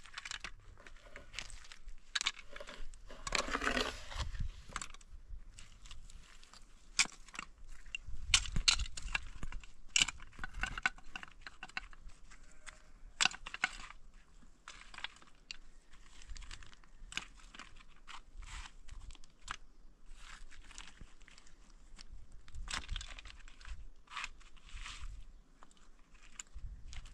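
Loose gravel and rubble crunching and scraping under gloved hands as stones are raked and moved by hand, with irregular clicks of stones knocking together.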